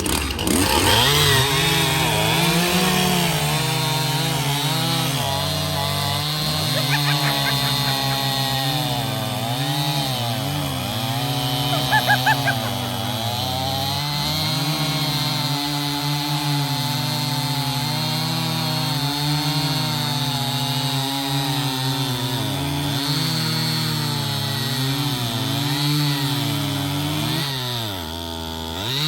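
Two two-stroke chainsaws, a 59.8 cc Echo CS-590 Timberwolf and a Stihl, running at full throttle while racing through logs. Their engine pitch dips repeatedly as the chains load up in the wood and rises again between cuts.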